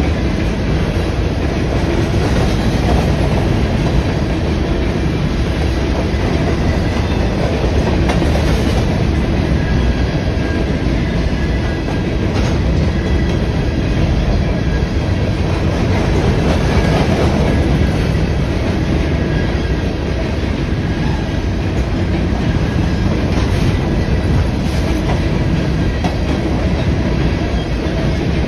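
Freight train of covered hopper cars rolling past, a steady, loud rumble and clatter of steel wheels on the rails.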